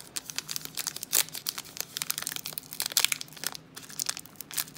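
Trading-card pack wrapper crinkling and crackling in the hands as it is pulled open, a dense run of sharp crackles with louder snaps about a second in and about three seconds in.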